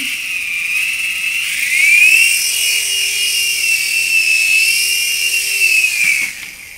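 Carson Nano Tyrann mini RC helicopter's electric motor and rotors whining at a high pitch. The whine rises about two seconds in as it is throttled up and lifts off, wavers while it flies a small circle, and fades away about six seconds in as it comes down.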